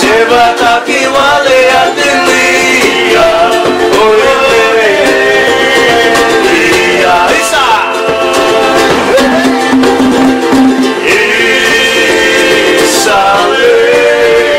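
Men singing in harmony to strummed ukulele and guitar, an island string-band song.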